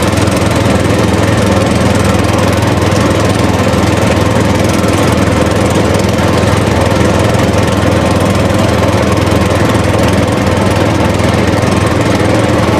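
A small motor running steadily at one constant speed, loud and unchanging, with a low hum under a hissing, buzzing rattle.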